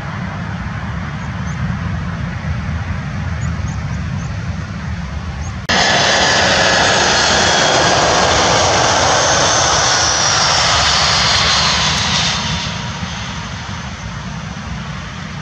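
Jet airliner engines at a runway: a low rumble from a Boeing 737 just after touchdown, then about six seconds in a much louder jet sound cuts in abruptly as an Airbus A319 passes low on final approach, its high engine whine falling in pitch as it goes by and fading after about twelve seconds.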